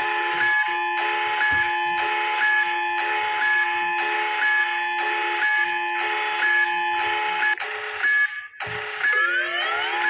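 Layered electronic alarm tones of a mock emergency alert: a steady multi-tone drone with a beep pulsing about once a second. Near the end the sound briefly cuts out, then a rising sweep comes in.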